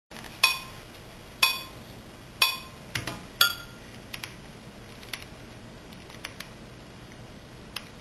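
Four sharp clinks with a short ringing tone, about a second apart, then a few fainter clicks over a steady hiss.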